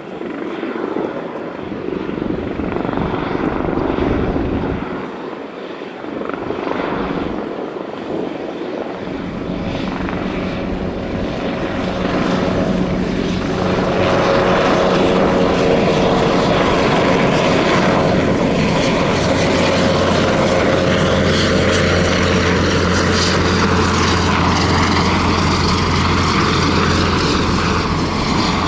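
Airbus H225M Caracal twin-turbine military helicopter flying close by: rotor and turbine noise that grows louder over the first half, then holds steady and loud, with a low rotor drone.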